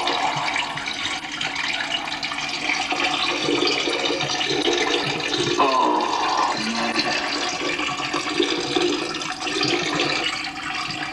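A person urinating into a toilet: a long, steady stream of liquid splashing into the bowl water without a break.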